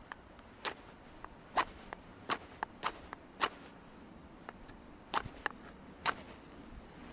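Wood campfire crackling: sharp snaps and pops at irregular intervals, about a dozen over several seconds.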